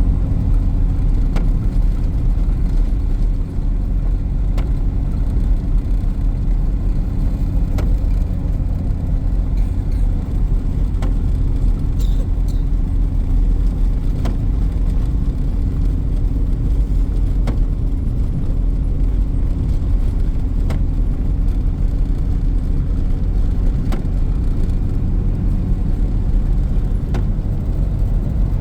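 Car driving, with a steady low engine and road rumble. Faint ticks come about every second and a half.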